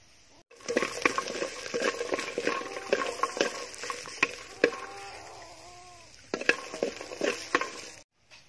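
Wooden spatula scraping and knocking against an aluminium pot as chilies, shallots and garlic are dry-roasted over a wood fire, with a light sizzle under the strokes. It starts about half a second in and stops abruptly near the end.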